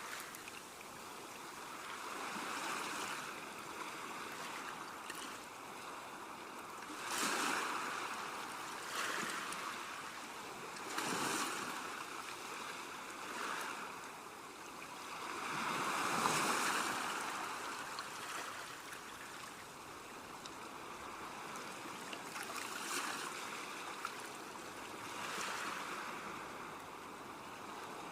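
Small waves washing onto the shore. The surf swells and fades every few seconds, with a steady hiss between the swells.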